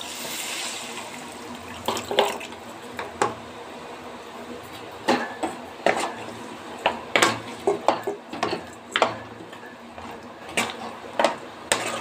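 Boiled goat trotters and their cooking water poured into a kadai with a brief hiss, then a steel ladle knocking, clinking and scraping against the pan as the trotters are stirred into the gravy.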